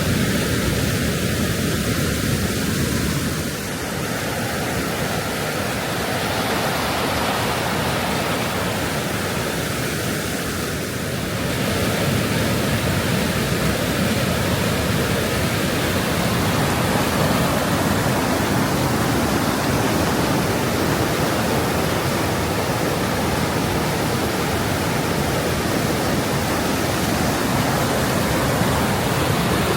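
Oxtongue River water rushing steadily, a continuous even roar of moving water.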